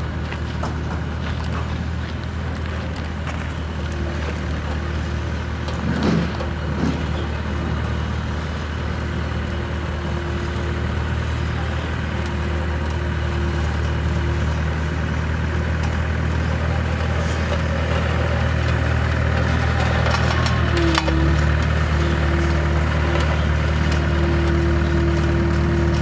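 Double-drum road roller's diesel engine running steadily, with a constant low hum and an even whine, growing slowly louder as the roller comes closer. A brief rising-and-falling sweep comes about six seconds in, and the whine dips for a moment a little past twenty seconds.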